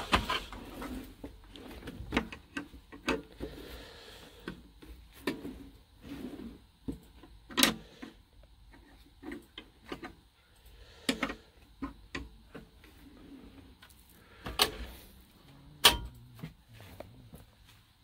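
Irregular clicks, clacks and knocks of tools and small items being handled, with a few sharper clacks, the loudest about seven and a half seconds in and again near the end.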